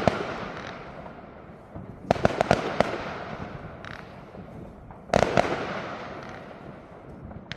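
Fireworks exploding: a rapid cluster of sharp bangs about two seconds in and another about five seconds in, each trailing off in a fading crackle.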